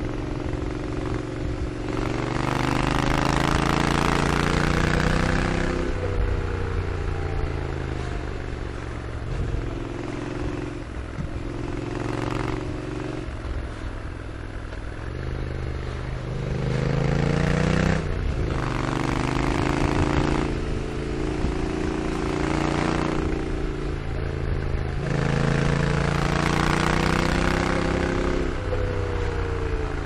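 Honda NC750X parallel-twin engine and exhaust under way. The pitch climbs repeatedly under acceleration and drops back at each shift or roll-off, with wind rush swelling in the louder stretches.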